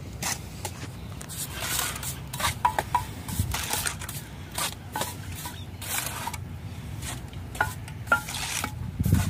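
Steel mason's trowel scraping and spreading mortar along the tops of concrete blocks in quick repeated strokes, with a few short metallic clinks of the trowel.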